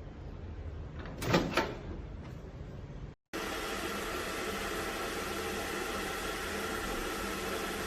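Panasonic NN-GT35NB microwave oven: a double clunk like its door shutting about a second in. After a brief break comes a steady, even running hum and hiss.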